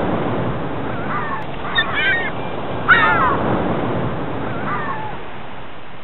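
Waterbirds calling: about four loud, downward-bending cries spaced a second or so apart, the loudest about three seconds in, over a steady rush like surf.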